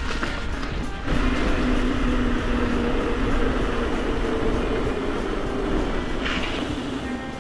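Mountain bike riding noise: a steady rolling roar from the tyres with a low hum in it, swelling about a second in and easing near the end.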